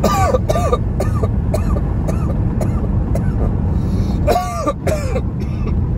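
A man coughing and clearing his throat in two fits, one at the start and one about four seconds in, after water went down the wrong pipe. Steady car road noise runs underneath.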